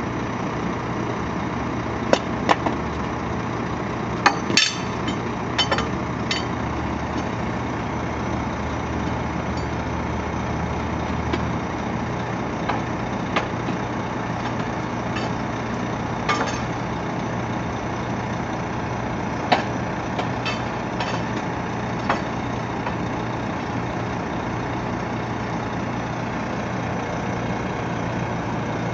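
Volvo FM 330 skip-loader truck's diesel engine idling steadily, with a deeper low hum underneath that stops about eleven seconds in. Sharp metallic clicks and clanks from the skip-loader gear come at scattered moments, the loudest about four and a half seconds in.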